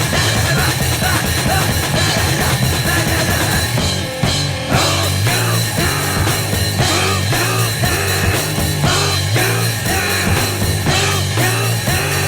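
Noisecore/grindnoise track: a dense wall of harsh, distorted noise with drums, briefly dropping about four seconds in before a repeating pattern takes over.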